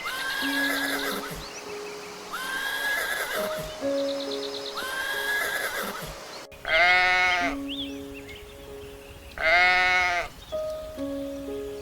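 Animal calls over background music: three repeated calls in the first half, then, after a cut about six and a half seconds in, two loud, clear pitched calls about a second long and roughly two and a half seconds apart.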